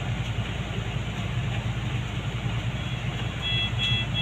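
Steady low hum of a window-type air conditioner in a small room. A few short electronic beeps from hospital equipment come in near the end.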